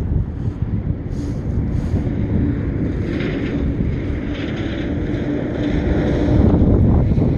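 Wind buffeting the microphone, a loud, steady low rumble, with a faint steady tone running under it.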